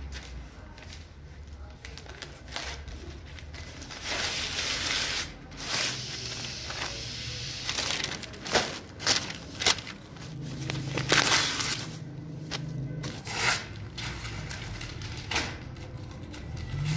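Sheets of paper and a plastic bag rustling and crackling as loose handwritten pages are handled and stuffed into the bag. There are longer stretches of rustling and several sharp crackles near the middle.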